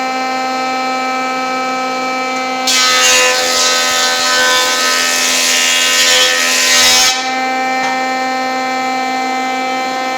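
Electric wood planer running with a steady whine. About three seconds in, a 2x4 board feeds through and the cutters bite, a loud rasping cut that lasts about four seconds. Then the planer runs free again.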